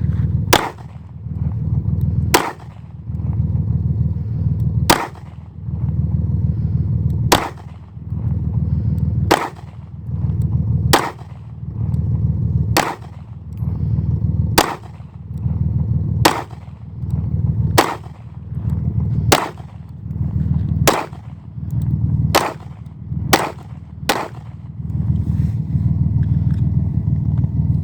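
Bersa TPR9 9mm pistol firing a magazine of Federal ammunition as single aimed shots, about fifteen in all, roughly every one and a half to two and a half seconds and quicker toward the end, with a steady low rumble underneath.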